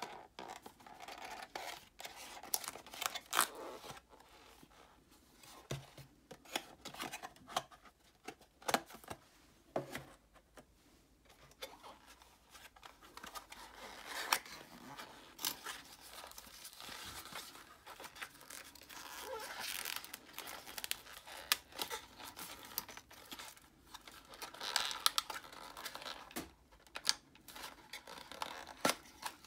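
Cardboard and paper packaging handled and opened by hand: box flaps scraping and rubbing, paper tearing and crinkling, with many short sharp clicks scattered throughout.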